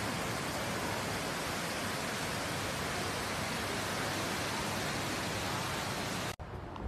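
A steady, even hiss at one level that starts abruptly and cuts off suddenly about six seconds in.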